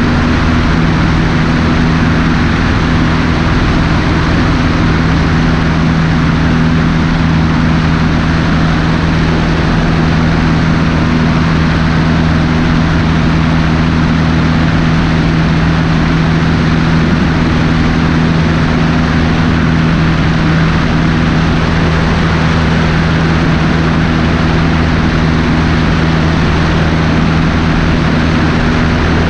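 Cessna 150's four-cylinder Continental O-200 engine and propeller running steadily in flight: a constant drone with two held tones under a dense rush of airflow noise.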